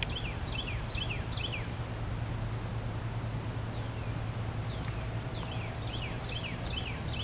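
A bird singing: runs of quick, high chirps that sweep downward, about three a second, one run at the start and another from about halfway through, over a steady low hum.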